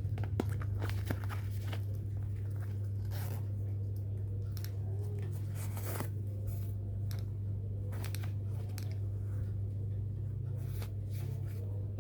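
Hands handling a women's folding wallet and its packaging: scattered rustles and small clicks, over a steady low hum.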